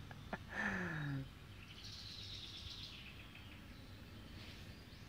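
Small birds chirping, with a high trill about two seconds in, over faint outdoor background. A short, low, falling pitched sound comes just before, about half a second in, and is the loudest thing heard.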